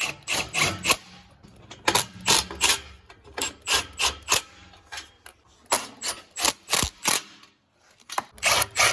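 Hand tools working on a car's exhaust during a gasket replacement: a string of short rasping strokes, two or three a second, with a brief lull near the end.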